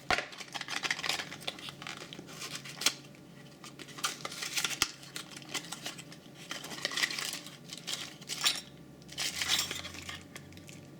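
Crinkling and rustling of small plastic packaging, broken by light clicks and clinks of small hard pieces being handled: keyboard accessories such as a keycap puller, a switch puller and spare keycaps.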